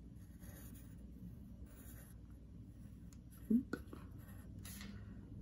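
Faint scratching of a pencil on paper in separate short strokes, as a block-letter outline is traced. About three and a half seconds in there is a brief vocal sound with a rising pitch.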